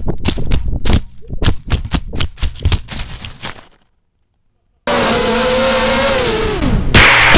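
FPV quadcopter's propellers clattering against branches as it falls through a tree, a rapid run of sharp hits that thins out and stops about four seconds in. After a second of silence the quad's motors whine loudly, heard from its onboard camera, their pitch sagging before a hard crash near the end.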